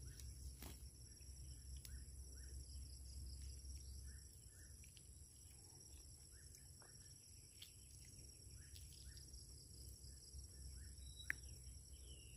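Near silence with faint, steady insect chirring held on a few high pitches and a low rumble underneath. A single sharp click sounds about eleven seconds in.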